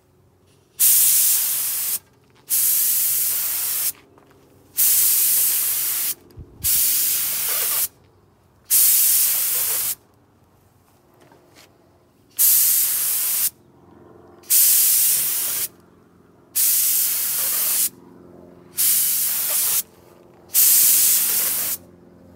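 Gravity-feed paint spray gun spraying clear coat in ten short bursts of hiss, each about a second long, with a longer pause about halfway.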